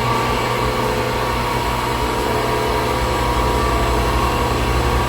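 A cut-off wheel tool running steadily at speed, a constant motor whine.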